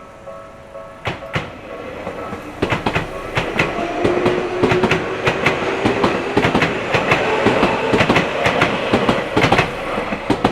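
Train passing, its wheels clacking rapidly and loudly over rail joints, building up about two and a half seconds in. A steady whine rises out of the clatter for a few seconds in the middle.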